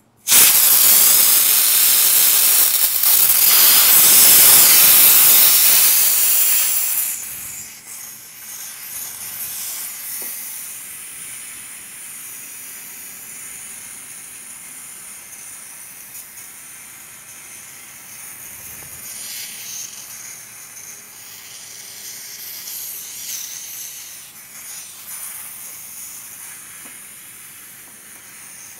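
Compressed air blasting out of a small Campbell Hausfeld air compressor's opened brass tank drain valve, carrying the condensed moisture out with it. A sudden loud hiss lasts about seven seconds, then drops to a much quieter hiss that slowly tapers as the tank pressure bleeds down.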